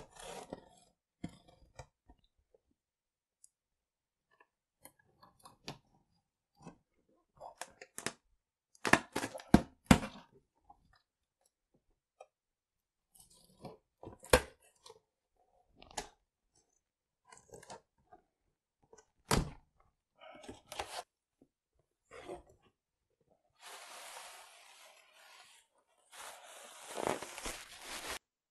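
A cardboard shipping box being opened by hand: a small safety box cutter slicing through packing tape, with irregular scrapes, crackles and knocks from the tape and cardboard flaps. Near the end come two longer stretches of tearing, rustling noise.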